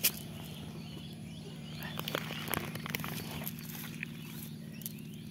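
Rustling and scattered clicks of a wet cast net being carried and set down on grass, with footsteps, over a steady low hum.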